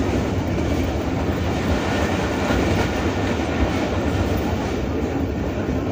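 Steady running noise of a passenger train in motion, heard from an open coach window: the coach's wheels rolling on the rails with a continuous rumble and rush.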